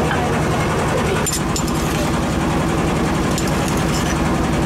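A boat engine running at a steady low throb, with a few sharp clicks and scrapes of a stone mortar and pestle on top, about a second in and again past the middle.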